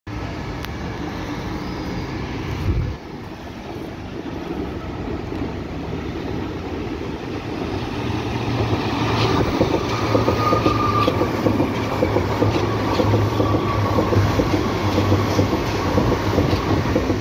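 Berlin U-Bahn small-profile train on the U2 approaching and passing close by, its wheels clattering over the rail joints with a faint wheel squeal, growing louder through the second half. Street traffic noise lies under the start.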